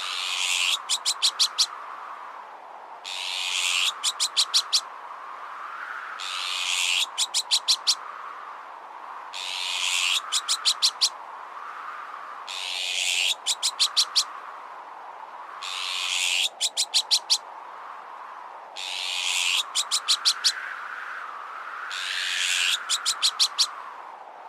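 Azure-winged magpie alarm calls repeating about every three seconds: each a harsh rasping note followed by five or six rapid clipped notes. Beneath them a wind sound whistles and slowly rises and falls in pitch.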